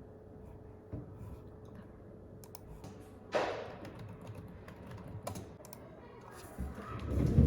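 Typing on a computer keyboard: scattered key clicks, with one louder knock about three seconds in.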